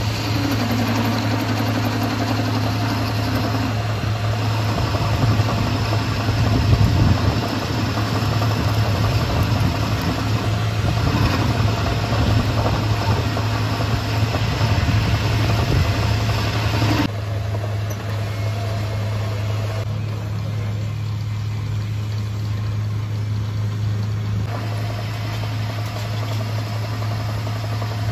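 Metal lathe turning a steel CV-joint drive shaft: the motor and spindle hum steadily while the tool bit cuts the shaft end with a gritty scraping. The cutting noise drops away about two-thirds of the way in, leaving mostly the hum, and a thinner cutting sound comes back near the end.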